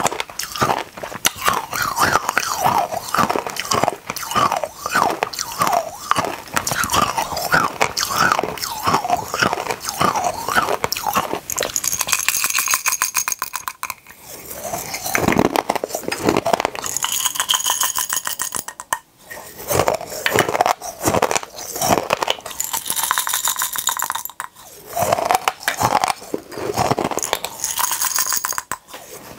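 Hard mini candies crunched and chewed close to the microphone: dense, rapid cracking and crunching, broken by a few short pauses.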